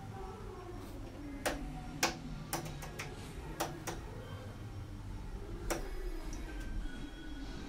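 Switches on the front panel of a Philips PM5570 video test signal generator being operated, giving about ten sharp, irregular clicks, most of them in the first four seconds and one more near six seconds in. A low steady hum runs underneath.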